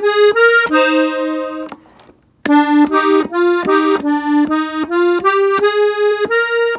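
Button accordion tuned in F (a Gabbanelli) playing a quick run of single treble notes, an ornamental fill in E-flat. It holds one note, stops for about half a second near two seconds in, then starts another quick run.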